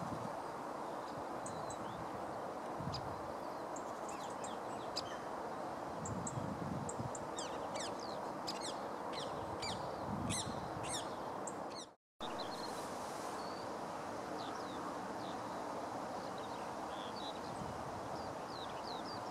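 Birds chirping with short, high calls scattered through, busiest shortly before the middle, over steady outdoor background noise. The sound drops out for a moment about twelve seconds in.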